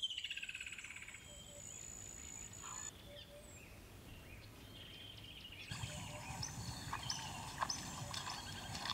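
Forest ambience with wild birds calling: a fast trill that falls in pitch right at the start, a thin steady high tone for the first three seconds, then scattered calls and, from about six seconds in, a busier run of repeated high calls with sharp clicks.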